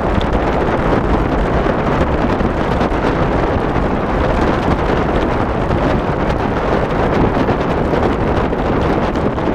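Steady wind rushing over the microphone of a camera moving with a four-dog sled-dog team, with a low rumble underneath that doesn't let up.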